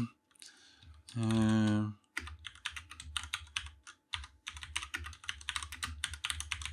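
Computer keyboard typing: a quick, uneven run of key clicks lasting several seconds. It comes after a brief drawn-out voice sound (an 'mm' or 'uh') about a second in.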